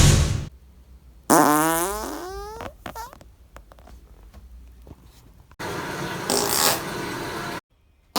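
A run of farts. About a second in comes a loud tonal fart whose pitch rises for about a second and a half, trailing off in a few short pops. Near the end comes a longer, airy, hissing fart lasting about two seconds.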